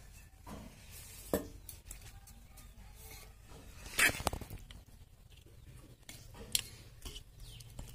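Handling noise: scattered light knocks and clicks, the loudest about a second in and again about four seconds in, over a low steady hum.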